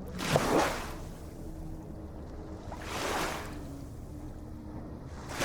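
Ocean waves breaking and washing in, two surges about three seconds apart, the first the loudest, over a low steady hum.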